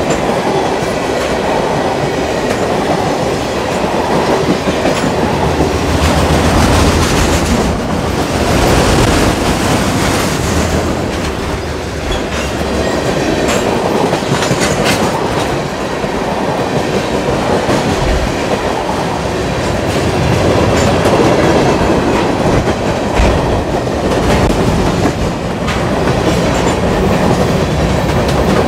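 A freight train's cars (covered hoppers and autoracks) rolling past close by: steady, loud wheel-on-rail noise with scattered clicks from the wheels.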